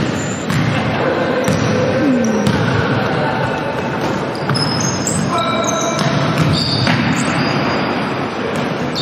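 Basketball game on a wooden gym floor: the ball bouncing on the court amid players' running footsteps and voices, echoing in the large hall.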